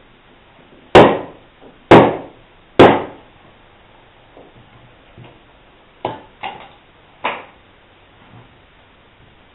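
Three hard strikes of a wooden mallet on the back of a froe, about a second apart, driving the blade into a sweet chestnut block to split off a shingle. A few lighter wooden knocks follow several seconds later.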